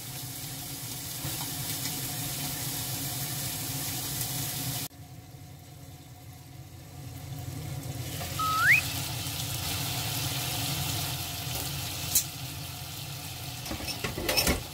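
Chicken thigh pieces sizzling in oil as they fry skin-side down in a lidded frying pan. The sizzle drops suddenly about a third of the way in and builds again, with a brief rising squeak about halfway through and a few sharp clicks near the end as the glass lid is handled.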